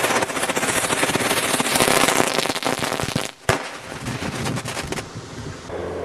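Duck-shaped novelty fountain firework going off in a hissing shower of rapid crackling, loudest for the first three seconds. A single sharp pop comes about three and a half seconds in, and fainter crackling follows.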